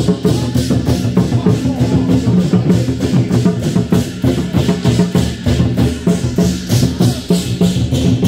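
Loud music with a fast, steady drum beat over sustained low notes, played for a passing temple procession troupe.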